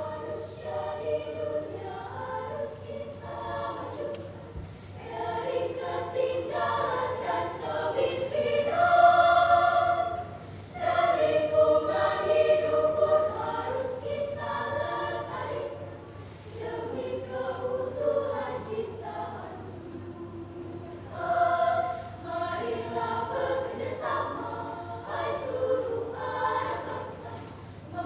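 A children's choir singing in parts, phrases swelling and easing off, loudest about nine seconds in.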